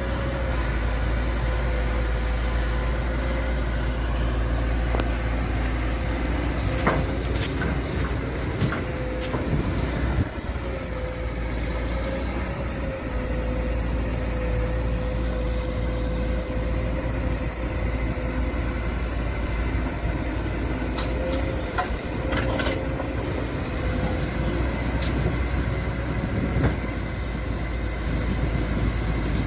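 Kobelco SK200 excavator's diesel engine running steadily under load, with a steady hydraulic whine and a few metallic clanks as the machine works.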